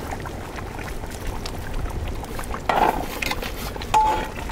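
Goat trotter paya boiling in a large metal pot over a wood fire, bubbling steadily while a ladle stirs in the herbs, with a short ringing clink about four seconds in.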